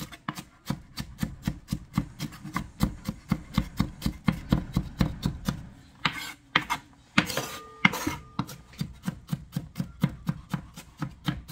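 Chef's knife rapidly mincing onions on a cutting board: a steady run of quick chops, about five a second, with a brief scraping sound about seven seconds in.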